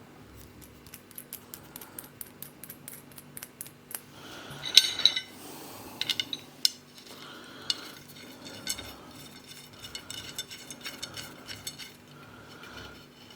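Small metal parts clinking and ticking as a nut is threaded onto the end of a metal pull rod by hand, in quick runs of light clicks, with a louder metallic clatter about five seconds in.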